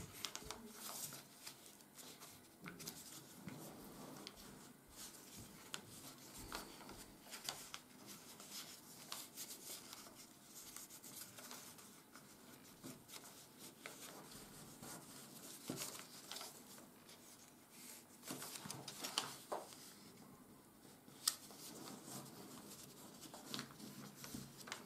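Sheet of 80 g/m² office paper rustling and crinkling faintly as it is folded and creased by hand, with scattered light crackles and one sharper click about twenty seconds in.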